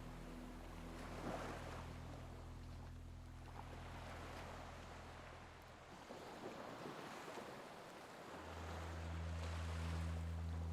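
Recorded ocean waves washing in and out, a soft hiss that swells and eases. Under it runs a low steady drone that fades away mid-way and returns louder about eight seconds in.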